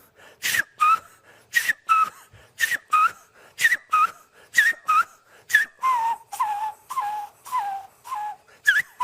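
A man whistling an imitation of a caracolero (snail kite) call: a series of short, sharply attacked yelping notes, about two a second, alternating between two pitches. The notes drop lower and waver after about six seconds. The call sounds like a little puppy.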